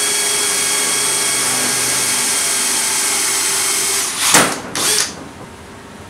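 Cordless drill boring through thin sheet metal, running steadily with a high whine, and stopping about four seconds in. Two loud knocks follow shortly after.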